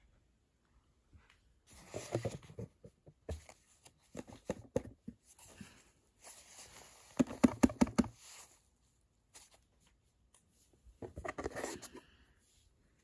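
Hands handling a plastic toy dollhouse: scattered clicks, taps and rustles in several short bursts, the sharpest clicks a little after the middle.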